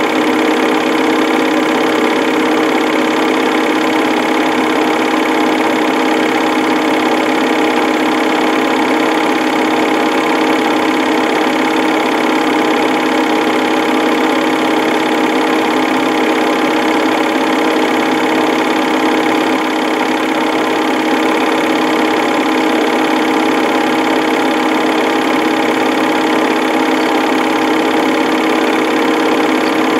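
Film projector running steadily: its motor and mechanism give an even mechanical whir with a constant hum.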